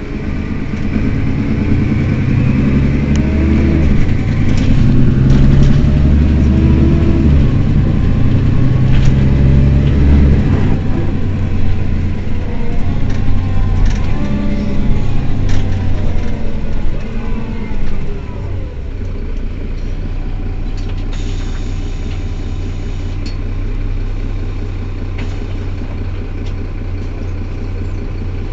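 Mercedes-Benz Citaro city bus's rear-mounted diesel engine running loudly, its pitch rising and falling, then dropping to a steady, quieter idle about eighteen seconds in.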